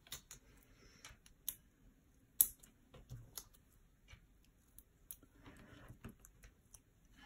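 Faint scattered clicks, taps and light rustles of hands working with card and sticky foam pads, peeling squares from the pad sheet and pressing them onto a card piece. One sharper tick comes about two and a half seconds in.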